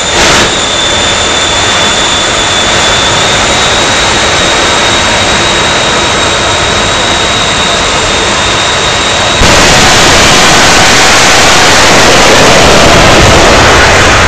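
Three jet engines on a jet-powered semi truck running steadily with a high turbine whine. About nine seconds in they go to full thrust, jumping suddenly to a louder, fuller rushing noise that buries the whine as the truck launches down the drag strip.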